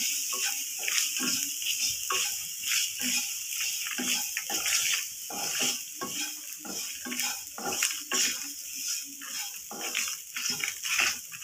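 Wooden spatula stirring and scraping a ground coconut and spice mixture around a non-stick pan in quick, irregular strokes, over a steady sizzle of hot oil. The mixture is being sautéed until its raw smell cooks off.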